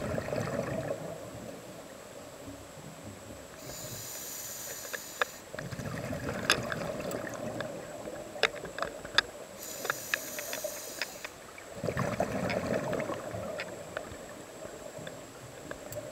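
Scuba diver breathing through a regulator underwater: a hiss on each inhalation, then a rush of exhaled bubbles, about every six seconds. A scatter of sharp clicks sounds between about 6 and 10 seconds in.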